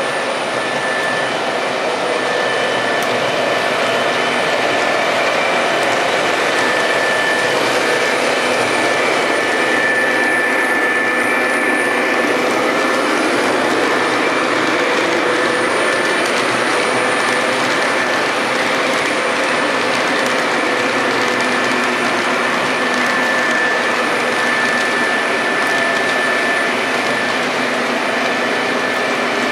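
Model trains running on the layout: a steady rolling noise of wheels on the track and locomotive motors, with a few faint steady whining tones over it.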